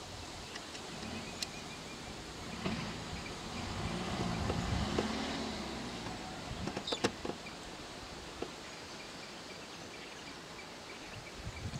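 Vehicle engine running low and steady in open outdoor ambience, swelling a little around the middle, with a few sharp knocks about seven seconds in and faint bird chirps.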